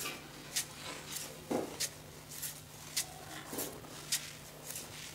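Wood fire crackling inside a brick pizza oven, sharp irregular pops about twice a second over a steady low hum.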